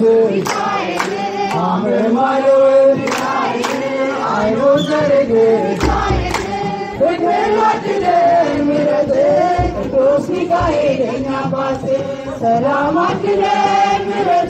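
A crowd of men and women singing a church hymn together in a call-like chant, with sharp hand claps keeping a beat about once a second.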